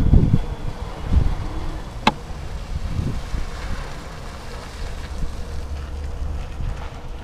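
Wind buffeting and a low road rumble on a bicycle-mounted action camera's microphone while riding, with one sharp click about two seconds in.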